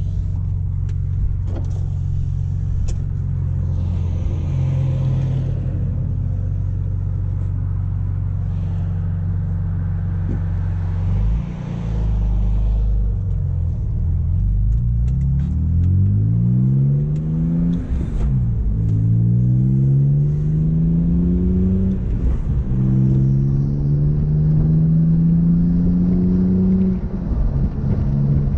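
S54 3.2-litre straight-six in a BMW E46 wagon, heard from inside the cabin. It idles steadily, then pulls away about eleven seconds in and accelerates, its pitch climbing through each gear. The pitch drops at each of three upshifts.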